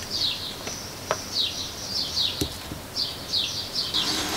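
A bird chirping: a quick, irregular run of short, high chirps, each falling in pitch, with a few light knocks from something handled on the bench.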